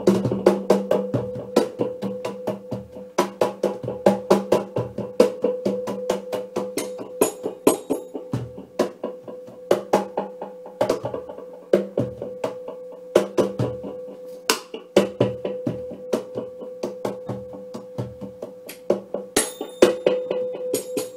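Hand percussion: a snare drum and a cajón played with bare hands in a fast, busy rhythm of sharp strokes, with deep bass thumps from the box recurring through the groove. A steady hum runs underneath, and a brief metallic shimmer comes in twice.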